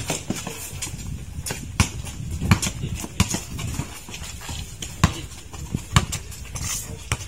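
Basketball being dribbled on a hard court: irregular sharp bounces, about one every half second to second, with players' footsteps.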